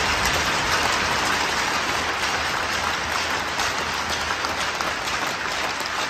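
Crowd applauding in an arena, a dense, steady clapping that gradually eases off.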